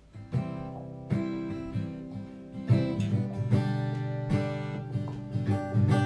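Background music: strummed acoustic guitar, coming in abruptly at the start.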